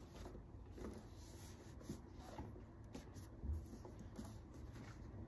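Faint rustling and rubbing of a Louis Vuitton Speedy 40 handbag being handled and lifted by its handles, with a few light taps and a soft thump a little past the middle.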